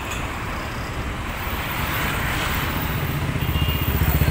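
Motorcycle engine idling close by, its low, rapid pulsing growing louder near the end, over street traffic noise that swells about two seconds in.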